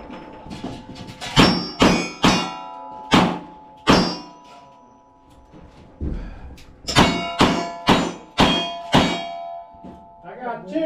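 Cowboy action shooting gunfire echoing inside a wooden shooting house: a string of shots, each followed by the ring of a struck steel target. After a lull of about two seconds near the middle, six shots follow quickly, about two and a half a second.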